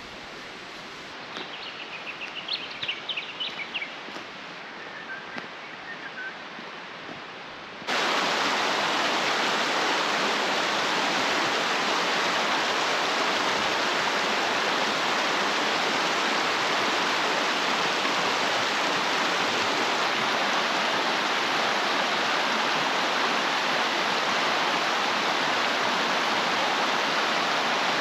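A shallow mountain creek rushing over rocks and small rapids, loud and steady. It starts with a sudden cut about eight seconds in, after a quieter stretch of open-air background with a few high chirps.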